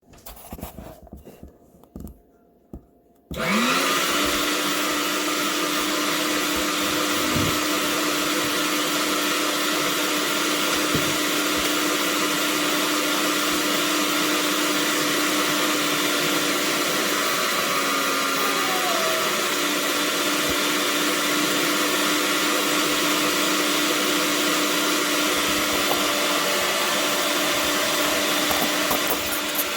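A few light handling knocks, then about three seconds in the Paderno electric meat grinder's 400 W motor switches on with a quick rise in pitch and runs with a steady whine, the same pitch throughout.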